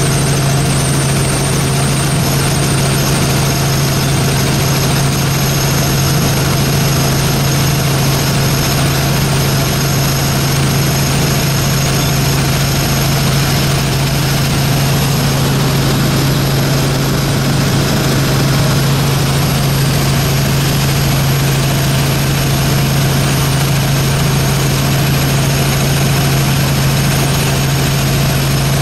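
Helicopter in flight heard from inside the cabin: a steady, loud drone of engine and rotor, with a strong low hum under a constant hiss.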